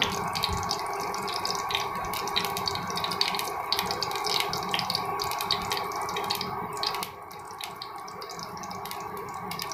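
Cumin seeds sizzling and crackling in hot mustard oil as a tempering, a steady hiss dotted with many small pops, over a steady hum from the induction cooktop. The sizzling quietens about seven seconds in.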